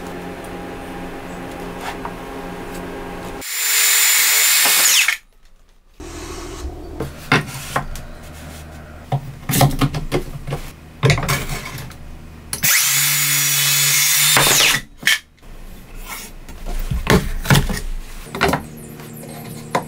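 A hand-held power tool runs in two short bursts of about two seconds each, its whine dropping as it stops. Between and after the bursts come sharp knocks and clatter of wooden boards and a clamp being handled.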